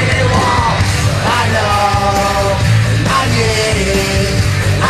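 A man yell-singing over a loud punk rock backing track.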